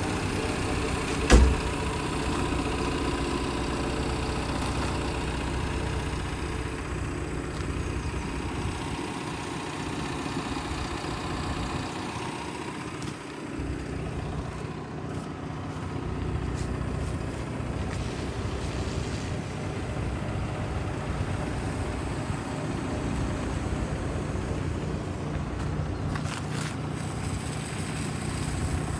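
Liebherr R914 Compact excavator's diesel engine running steadily at idle, with a single sharp knock about a second in.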